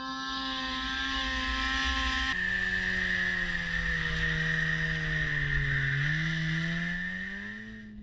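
A motor engine running with a steady pitch; about two seconds in the sound changes abruptly to a lower engine note that dips and then climbs in pitch near the end, over a low rumble.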